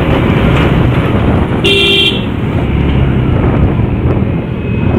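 Wind rush and motorcycle engine and road noise while riding. A short horn toot sounds about two seconds in.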